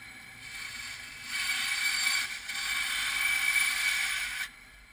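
Bandsaw running and cutting through 2-inch Schedule 40 PVC pipe: a steady low running noise, then a much louder cutting noise from a little over a second in, which drops away shortly before the end as the blade comes through.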